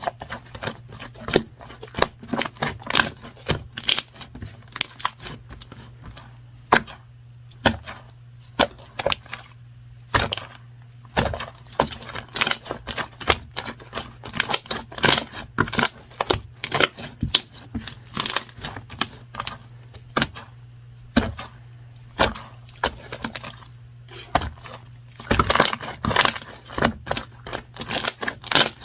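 Hands working with pens and paper on a desk: quick, irregular scratching strokes, taps and paper rustles, over a steady low hum.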